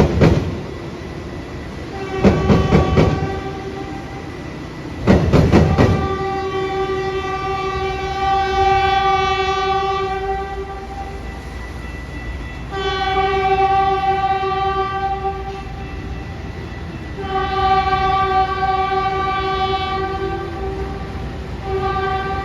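Train wheels clacking over rail joints in three quick clusters, then a train horn sounding four long blasts with short gaps between them.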